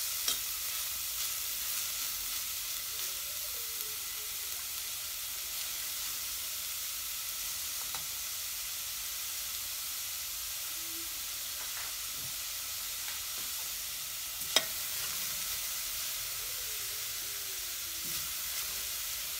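Grated carrots sizzling in butter in a metal saucepan as a metal spoon stirs them: a steady frying hiss with a few light clinks of the spoon on the pan. One sharp clink about three-quarters of the way through is the loudest sound.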